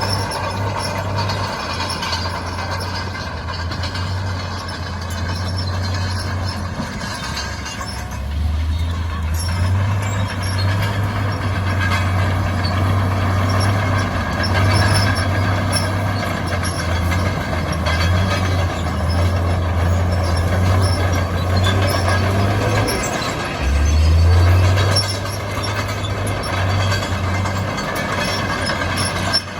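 Heavy diesel earthmoving machinery (a dump truck or bulldozer) running and working, its engine note shifting up and down, with a brief louder surge late on.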